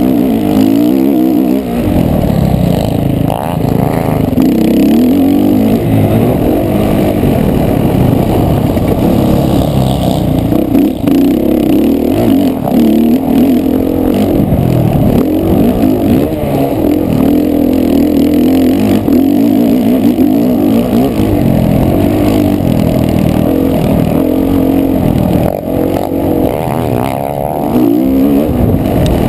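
Motocross bike engine revving hard, its pitch rising and falling again and again as the rider accelerates, shifts and backs off around a dirt track, heard from a helmet-mounted camera.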